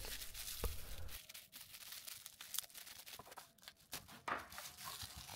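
Plastic bubble-wrap pouches crinkling and rustling as they are handled, a faint run of scattered small crackles.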